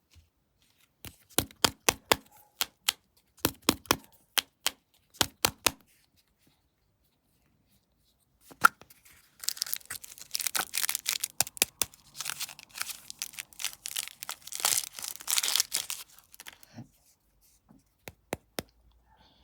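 Snack packaging being handled and torn open: a few clusters of sharp clicks and crackles, one louder snap, then several seconds of continuous tearing and crinkling of a wrapper.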